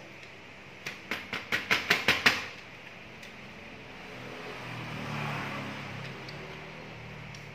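A quick run of about eight knocks, each louder than the last, from a copier's developer unit being handled while old developer powder is cleaned out of it. A few seconds later a soft hiss with a low hum swells and fades.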